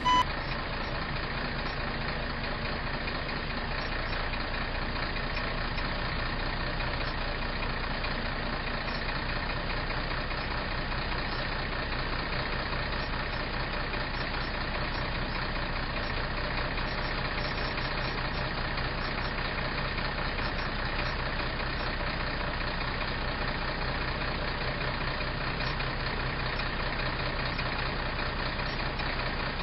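Semi-truck's diesel engine idling steadily.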